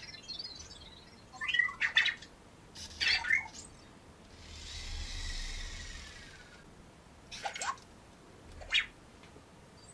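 Anki Vector robot giving short, chirpy electronic beeps and warbles several times, with a longer swelling whoosh in the middle.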